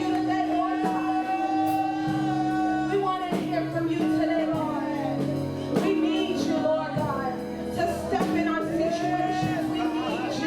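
Worship music: sustained instrumental chords with a voice singing over them.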